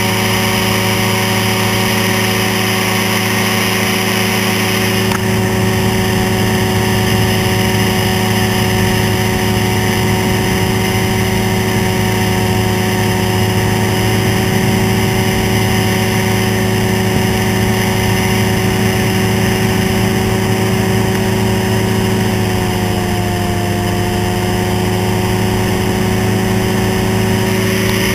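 Ultralight flying-boat trike's engine and propeller running steadily in flight. The engine pitch dips briefly and comes back up a few seconds before the end.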